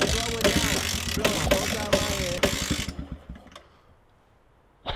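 Small dirt bike's engine running on a rig of cable drums, with irregular rattling and knocking from the rollers and frame. The sound fades and cuts to silence about three and a half seconds in.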